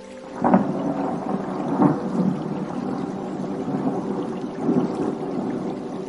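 Thunder: a sudden clap about half a second in, then a rolling rumble with further peaks near two seconds and near five seconds, easing off toward the end.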